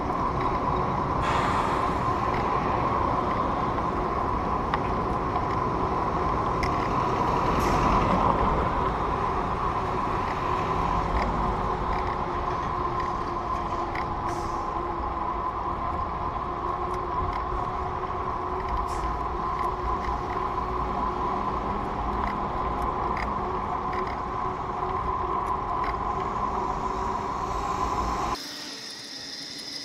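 Riding noise from a camera mounted on a moving bicycle: a steady rush of wind and tyre-on-road noise with low rumble and a constant hum, broken by a few light clicks and rattles. The noise swells briefly about a quarter of the way in, then drops off suddenly near the end.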